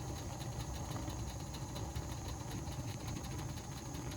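Gas burners of an old Tappan furnace firing with a steady low rumble, the blower not yet running while the heat exchanger warms.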